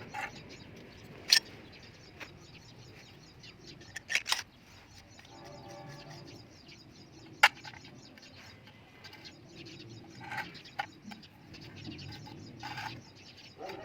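A few sharp clicks and knocks, spread out, the loudest about halfway through, with faint bird chirps behind them.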